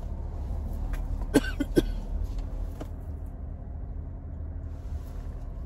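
Steady low rumble of a car driving, heard from inside the cabin, with two short sharp sounds about a second and a half in.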